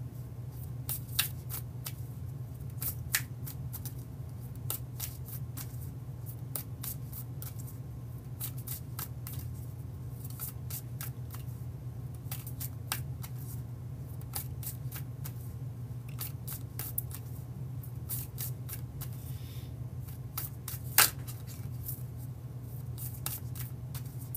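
A tarot deck being overhand shuffled by hand: an irregular run of soft card flicks and snaps, with one sharper snap near the end. A steady low hum underneath.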